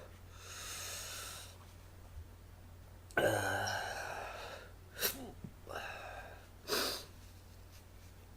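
A man breathing hard and hissing through his mouth against the burn of superhot Jigsaw chillies. There is a long hissing breath, then a louder, partly voiced one, then three short sharp breaths.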